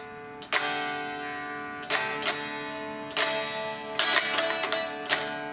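Squier Stratocaster electric guitar strummed with a pick, about eight chord strums spaced irregularly, each left to ring and fade before the next.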